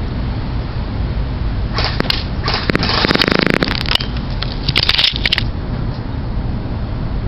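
Airsoft MP5 electric gun firing: scattered sharp clicks start about two seconds in, then a rapid full-auto burst with a whirring gearbox around three to four seconds, and a shorter burst about five seconds in. Steady wind rumble on the microphone underneath.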